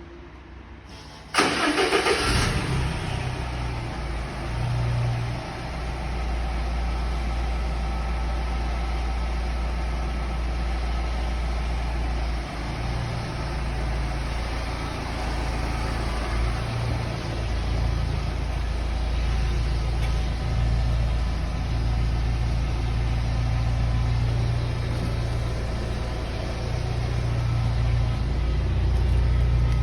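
An engine starts with a sudden burst about a second and a half in, then settles into a steady idle that grows a little louder near the end.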